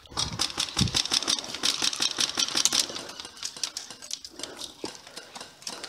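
Airsoft guns firing, a fast irregular run of sharp clicks and rattles that is densest in the first three seconds and thins out toward the end.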